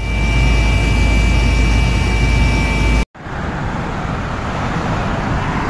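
Loud, steady rushing noise of floodwater with a heavy low rumble. It breaks off abruptly about three seconds in and gives way to another steady rushing of water.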